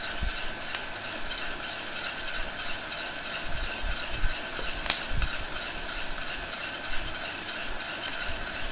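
Heat gun blowing steadily into a metal pot while a spoon stirs coffee beans, the beans rattling and scraping against the pot with dull low knocks. A few sharp clicks stand out, the loudest about five seconds in, while the beans are still in first crack.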